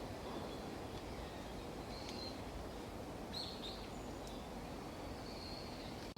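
Steady outdoor background noise with a few faint, short high bird chirps about two, three and a half, and five seconds in.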